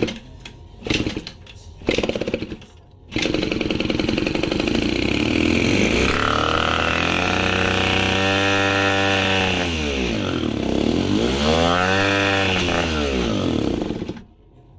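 Rebuilt 70cc two-stroke scooter engine. After a few short bursts it catches about three seconds in and runs at high revs with no idle. The revs sag and climb back twice, then it cuts off near the end. This racing with no idle is the sign of a serious air leak that the owner suspects.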